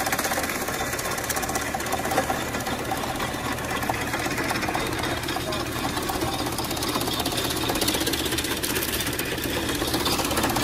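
Antique belt-driven corn husking machine running with a steady, rapid mechanical clatter as cornstalks are fed into it.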